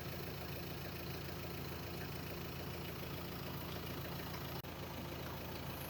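A vehicle engine running steadily at a constant speed, with one momentary dropout about two-thirds of the way through.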